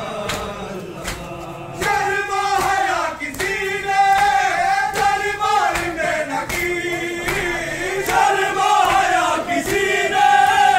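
Many men's voices chanting a noha, a Shia mourning lament, in unison, with hands slapping chests (matam) in a steady beat underneath. The chanting swells louder about two seconds in.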